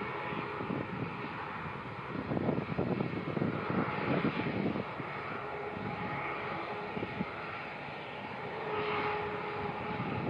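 Airbus A320's IAE V2500 jet engines running at low power on the apron: a steady roar, with a faint steady whine coming through in the later part.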